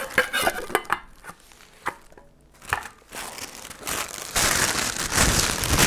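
Hard-anodized aluminium cookset pots and bowls knocking and clinking against each other as they are handled. About four seconds in, this gives way to a louder stretch of cloth rustling as a piece is wrapped to keep it from scratching.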